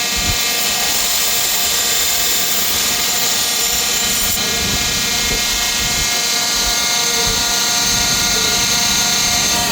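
Belt grinder running steadily, a continuous motor whine with many overtones, shifting slightly about four seconds in as the blade is worked.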